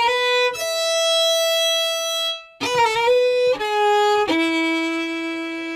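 Short intro music: a solo melody of five long held notes, with a brief break about two and a half seconds in, ending on the lowest note, held and fading away.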